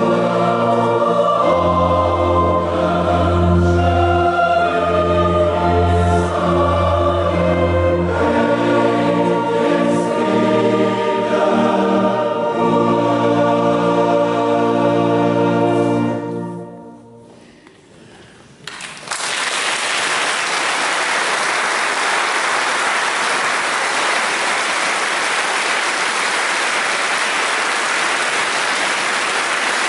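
A yodel club choir of mixed voices sings sustained chords under a conductor, with a deep bass part in the early seconds. The final chord dies away in the church's reverberation about 17 seconds in. About two seconds later the audience bursts into steady applause.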